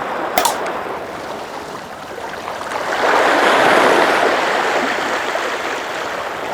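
Sea waves washing against the shore, one wave swelling about three seconds in and then easing off. A sharp click near the start.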